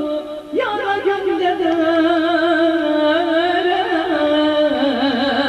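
Live Turkish music: a heavily ornamented melody with wide vibrato and wavering held notes over steady accompaniment. About half a second in the line briefly drops away, then comes back with a swooping rise.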